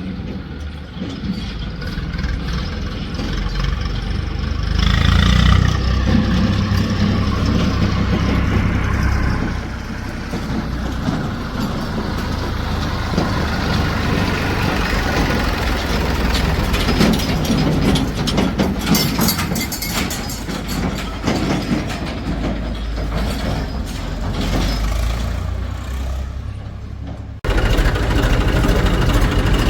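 Diesel engine of a JCB 3DX backhoe loader working under load, its sound rising and falling as the machine digs and loads mud. Near the end the sound cuts suddenly to a different steady engine running.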